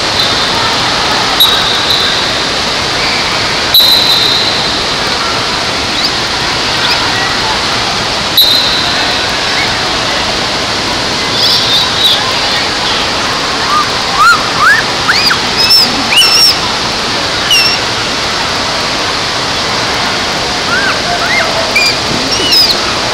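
Indoor water park din: a steady rush of water under a crowd's voices, with short high squeals from children that come thick in the second half.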